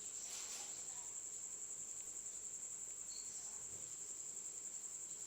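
A cricket trilling steadily in a high-pitched, evenly pulsing tone.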